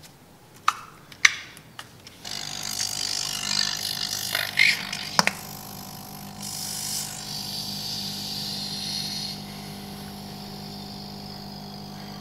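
Sticky slime clicking and popping under fingers for the first couple of seconds. Then a small air pump starts up, humming steadily with a hiss of air, pumping through a thin tube into a ball of slime to blow it up like a balloon.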